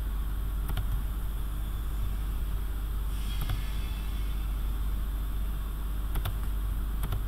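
Steady low hum and hiss of the recording setup, with a few faint computer-mouse clicks as menu items are picked.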